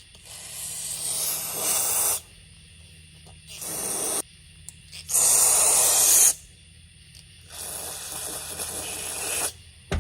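Aerosol carburetor cleaner sprayed through a chainsaw carburetor in four hissing bursts, the second one short, the third the loudest.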